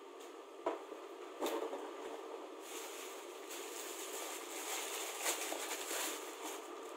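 Light knocks of items being set down, then several seconds of rustling as packaging is handled, over a steady low hum.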